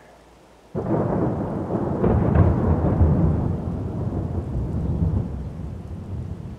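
Thunder rumble: it breaks in suddenly under a second in, is loudest about two seconds in, then slowly dies away.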